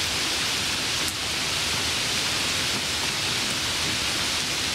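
Steady, even rain-like hiss with no change in level, and a faint click about a second in.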